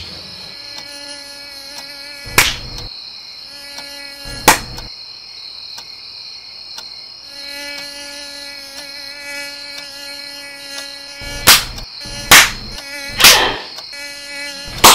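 A mosquito's high whine fades in and out over a steady high ringing tone, broken by sharp hand claps swatting at it: two a couple of seconds apart, then four in quick succession near the end.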